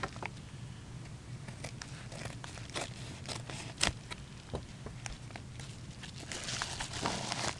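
A mailed card package being handled and opened: scattered light clicks and taps, then a stretch of crinkling packaging rustle near the end.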